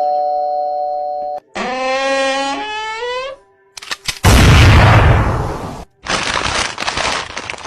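A doorbell chime rings out and fades about a second in. Then comes a wavering pitched cry lasting about two seconds, followed by a loud noisy rush and a steady hiss-like noise.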